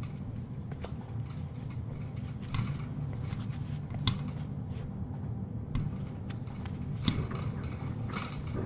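A low steady hum with a few scattered clicks and soft knocks, as a cat brushes against the live-cam camera.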